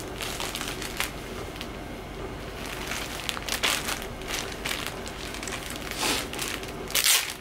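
Plastic packaging crinkling and rustling as a wrapped packet is handled and turned over, in irregular bursts that are loudest near the end.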